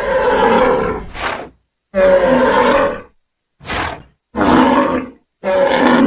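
Sarbok creature sound effects: a run of five roars and bellows, each a second or less and cut off sharply, with dead silence between them.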